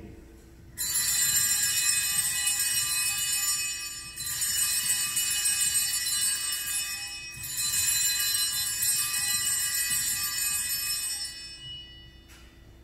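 Altar bells (sanctus bells) rung three times, each ring a bright shimmering jingle lasting about three seconds. They mark the elevation of the host at the consecration.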